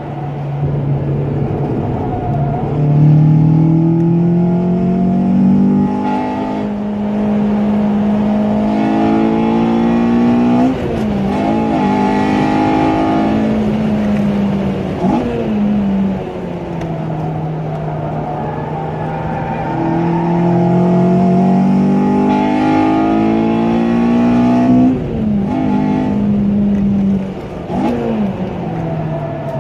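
A car engine heard from inside the cabin, driven hard around a race circuit. Its pitch climbs steadily under acceleration, drops sharply and climbs again about three times, over steady road and tyre noise.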